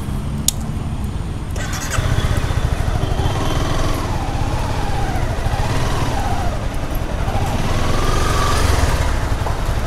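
Motorcycle engine running close by, getting louder about two seconds in, its pitch rising and falling as it is revved.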